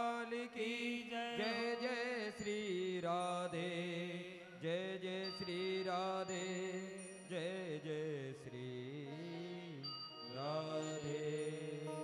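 Slow chant-like devotional music: a single melody line wavers and glides in pitch, in phrases of a second or two with short breaks.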